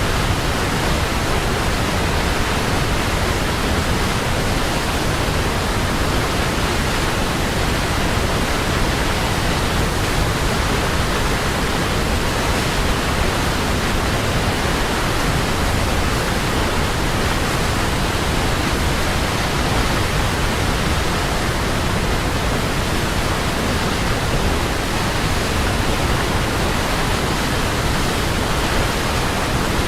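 Waterfall: falling water making a steady, even rush of noise, with no breaks or changes.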